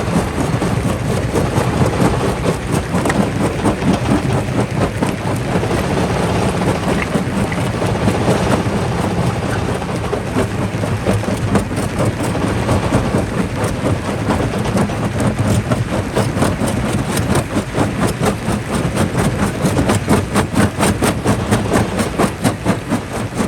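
Jaw crusher crushing rock: a steady heavy machine rumble with rapid, continuous knocks and cracks of stone breaking in the jaws.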